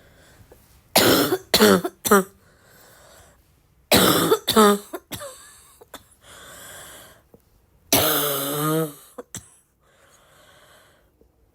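A person coughing in fits: three sharp coughs about a second in, two more around four seconds, and a longer, voiced one near eight seconds. Quieter breaths come between the fits.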